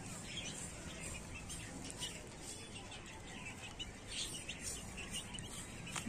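Domestic chicks peeping, short high peeps repeating again and again as they feed.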